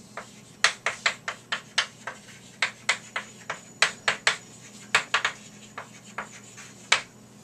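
Chalk writing on a chalkboard: an uneven run of sharp taps and short scratches, about two to three a second, as the letters are stroked out by hand.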